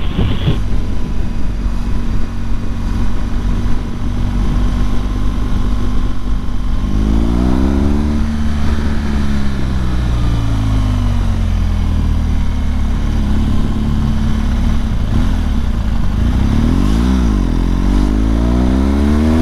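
BMW R1200GS Adventure's boxer-twin engine running at low speed, steady at first, then rising and falling in pitch with the throttle, and revving up again near the end.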